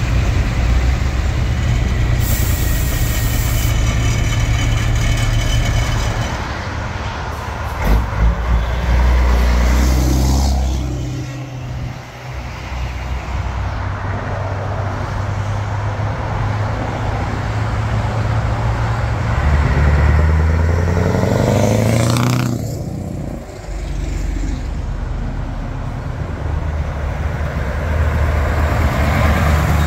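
Diesel engines of classic trucks running and driving past on open exhausts. There is a short air-brake hiss about two seconds in, and a little past the middle one truck revs up, its pitch rising as it pulls away.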